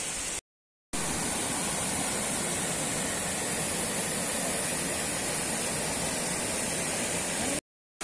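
Steady rushing of falling water from a nearby waterfall, cut off abruptly twice by brief silent gaps, once just under a second in and again near the end.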